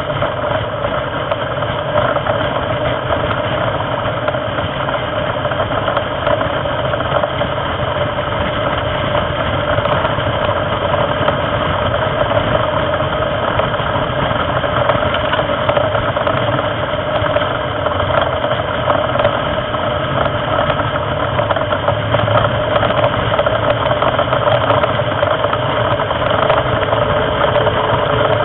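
Onboard sound of a race car at speed on track: its engine running hard in a steady, unbroken drone mixed with road and wind noise, getting slightly louder toward the end.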